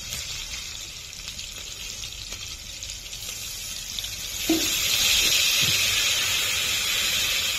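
Spices frying in oil in a kadai, a soft sizzle. About four and a half seconds in, liquid is poured from a steel bowl into the hot pan and the sizzle jumps to a loud, steady hiss.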